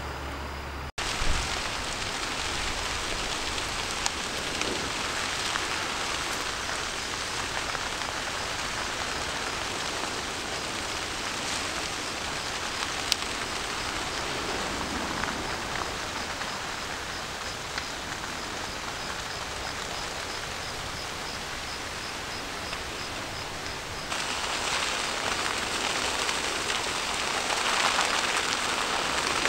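Dry grass and brush burning in a wildfire: a steady crackling hiss with a few sharp pops, louder over the last few seconds.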